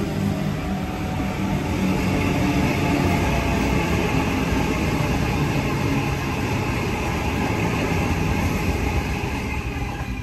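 A Sydney Trains Waratah double-deck electric passenger train running past the platform: a steady rumble of wheels on rails with a hiss over it, easing off slightly near the end.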